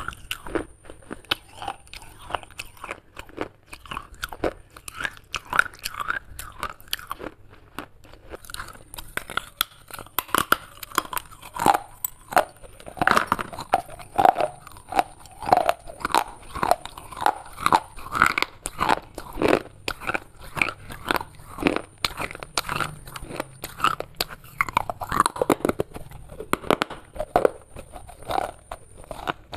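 Broken clay pieces crunched and chewed close to the mouth: dense, irregular crunching throughout, heavier from about halfway through.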